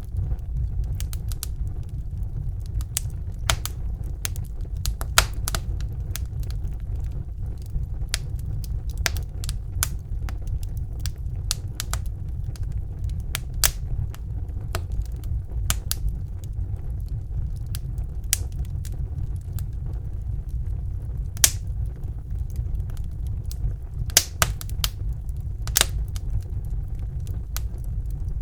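Wood fire burning in a fireplace: a steady low rumble of the flames with irregular sharp crackles and pops, some louder snaps standing out.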